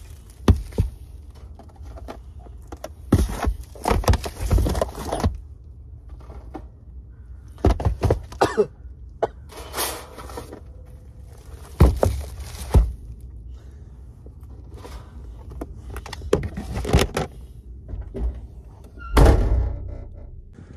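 Plastic-wrapped food containers set down one after another on the floor of a car's cargo area: a dozen or so thunks and knocks, with plastic wrap crinkling. Near the end comes a heavy thud, the rear hatch being shut.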